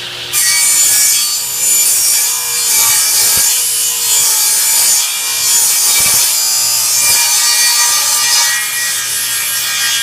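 Table saw taking a light jointing pass along a board's edge, shaving off the high spots. The blade's high-pitched cutting noise comes in about half a second in over the motor's steady hum and lets up at the very end.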